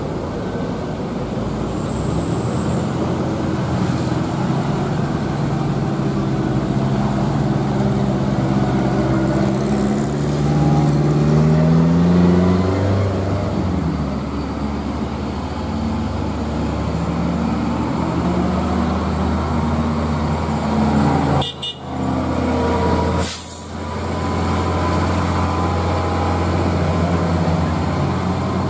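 Hino tractor head's diesel engine pulling under load, its pitch rising as it accelerates and then running steadily. There are two short sharp sounds about three-quarters of the way through.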